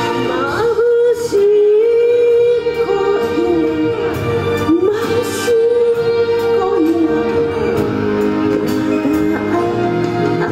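Elderly woman singing a Japanese kayō song into a microphone over instrumental accompaniment, holding long notes and sliding between them.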